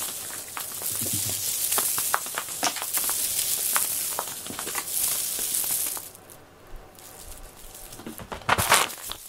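A string cat toy with a crinkly filling being whipped and dragged across a foam floor mat: a continuous crinkling, swishing rustle with small clicks. It drops away about six seconds in and comes back as a short, loud rustle near the end.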